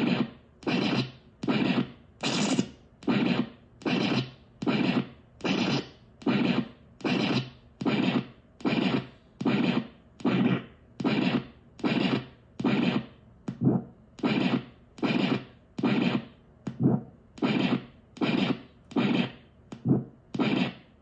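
DIY sampler built around the ISD1820 record/playback chip, its four-step sequencer retriggering a short recorded sample over and over. The result is a steady rhythmic stream of brief, choppy lo-fi hits, about one and a half a second.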